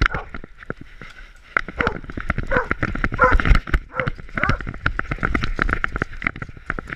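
Dense, irregular knocking and rattling of a GoPro camera strapped to a dog's back by a body harness, jolted by the dog's steps as it moves about.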